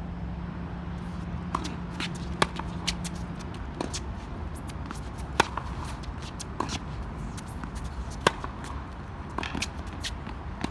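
Tennis rally on a hard court: racket strikes on the ball and ball bounces, the nearer player's hits loudest, about every three seconds, with softer hits and bounces between them. Steady background hum underneath.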